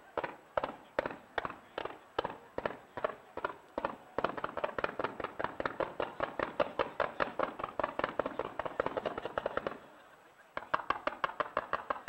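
Fireworks firing fans of comets from the ground in rapid, evenly spaced reports, about three or four a second at first. About four seconds in it quickens to a dense volley of shots, stops briefly about ten seconds in, then fires rapidly again.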